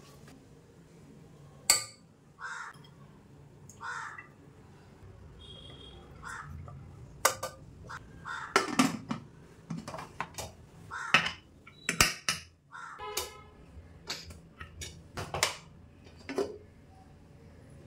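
Crows cawing again and again, short harsh calls every second or two. A few sharp metallic clinks from the pressure cooker pot and its lid being handled are the loudest sounds.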